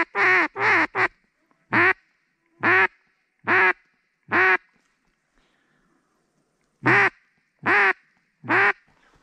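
A series of loud, nasal duck quacks. A quick run opens it, then single quacks come about a second apart, and after a pause of about two seconds three more follow.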